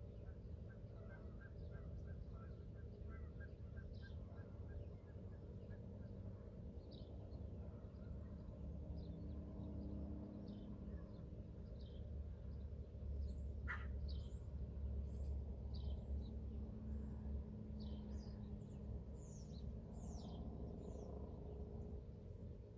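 Small birds chirping: many short, high, falling chirps, thickest from about a quarter of the way in. Underneath is a steady low rumble.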